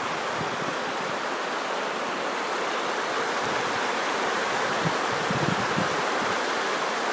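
Mississippi River floodwater rushing steadily as it pours over the top of a levee.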